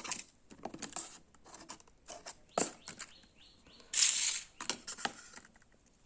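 Packaging and paper of a pulse oximeter box being handled: scattered rustles and small clicks, with a longer rustle about four seconds in.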